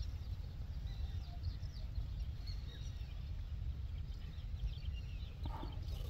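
Small birds chirping and twittering in many short, high calls, over a steady low rumble.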